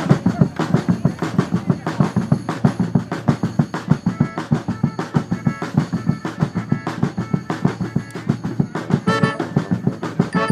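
A street band's drum section, snare and bass drums, playing a steady driving beat of about four strokes a second. A few short pitched notes cut in near the end as the horns get ready to come in.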